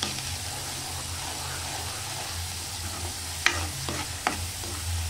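Ground onion-tomato masala sizzling steadily as it fries in mustard oil in a kadhai, stirred with a spoon that scrapes the pan, with a couple of sharp knocks of the spoon on the pan in the second half.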